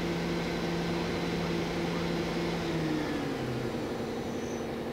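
The spindle of a Doosan Puma 2600LM CNC lathe spins its 12-inch hydraulic chuck at 2,000 RPM with a steady hum. About three seconds in, its pitch falls and fades as the spindle winds down.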